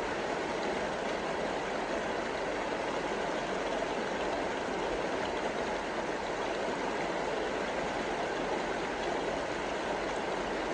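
Steady, even rush of whitewater in a river rapid.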